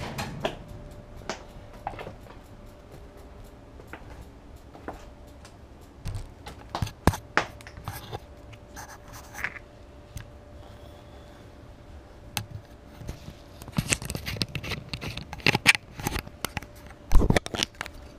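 Small action camera being handled at close range, likely taken off its mount: scattered clicks, knocks and scrapes over a faint steady hum. They thicken into a quick run of clicks and scraping over the last few seconds, with the loudest knock near the end.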